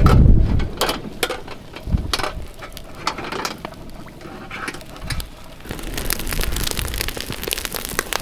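Crackling and sizzling over a cooking fire: scattered sharp crackles that thicken into a steady hiss about six seconds in. A low wind rumble at the start.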